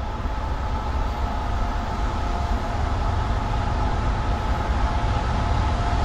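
CSX manifest freight led by two GE ET44AH diesel locomotives approaching at track speed: a steady low rumble with a few steady high tones over it, slowly getting louder.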